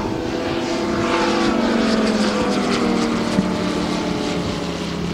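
Moki radial engine of a large-scale RC F4U Corsair running at flying speed as the model passes overhead, its pitch dropping as it goes by about two seconds in. A single brief click a little past three seconds in.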